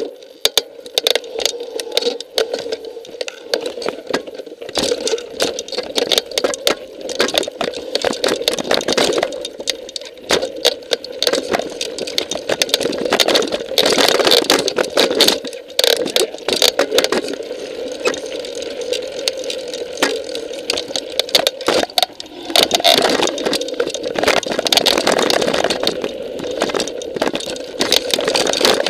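Mountain bike riding down a rocky trail: constant rattling and clattering of the bike over the rocks, with a steady hum underneath.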